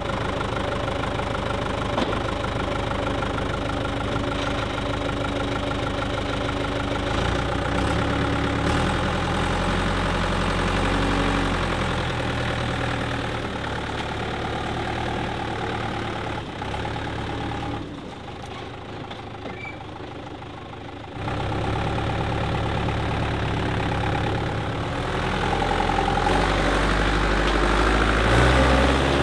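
Mitsubishi Canter truck's diesel engine idling steadily after a hard start on flat batteries. It drops away for about three seconds past the middle, then comes back louder near the end.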